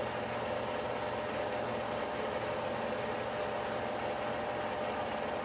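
A steady mechanical hum and hiss that holds a constant pitch without change, like a small motor running.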